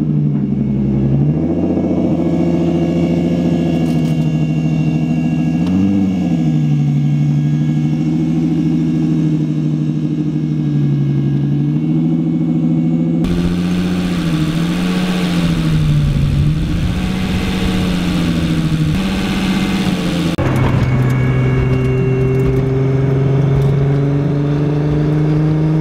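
Turbocharged RB25DET straight-six running on its new coil-on-plug ignition. It idles with its revs wavering, with a short blip about six seconds in. Later it is driving, heard from inside the cabin near the end, with the engine note climbing.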